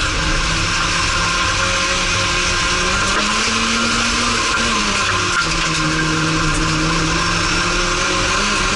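Racing car engine heard from inside the cockpit, running hard under load. Its pitch climbs about three seconds in, drops back near the middle and then holds steady, over a constant hiss of tyres on the loose dirt track.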